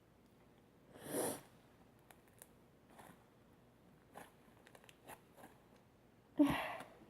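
Slime with polystyrene beads and shaving foam being squeezed and kneaded by hand. There are two short crackling squishes, about a second in and near the end, with faint scattered clicks between.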